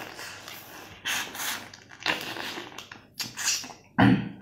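Close-miked eating of grilled prawns: noisy bursts of chewing and mouth noise roughly once a second, with a short, loud thud near the end.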